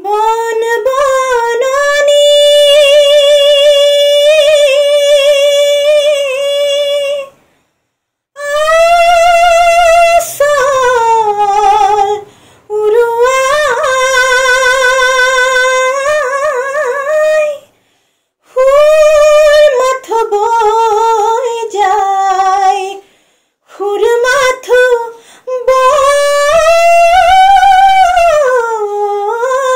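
A woman singing an Assamese modern song unaccompanied. She holds notes with vibrato in long phrases, broken by brief full pauses for breath.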